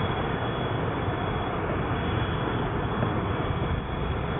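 Airbus A380 jet engines running at taxi power as the aircraft rolls past: a steady, even rushing noise with a faint high-pitched whine.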